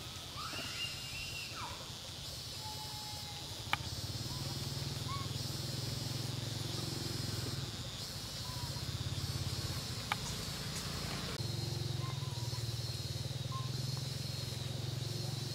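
Outdoor forest ambience: a steady high-pitched drone and a low hum, the hum growing louder a few seconds in, with a few brief squeaky calls in the first second or so, scattered faint chirps and two sharp clicks.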